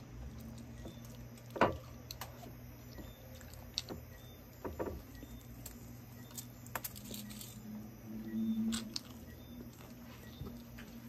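Close-miked eating sounds from biting and chewing sauced fried chicken wings: wet chewing with sharp clicks and crackles, the loudest about a second and a half in. A short low hum comes near the end.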